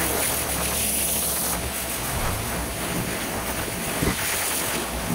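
Pressure washer spraying: a steady, loud hiss of high-pressure water striking a surface. A single brief knock about four seconds in.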